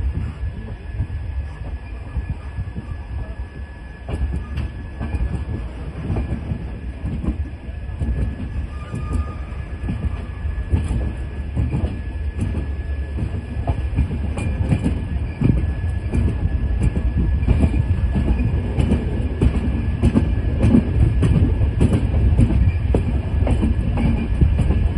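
Passenger train pulling out and gathering speed, heard from inside the coach: a low rumble of wheels on rails with sharp clacks over rail joints and points that come more often and grow louder as it speeds up.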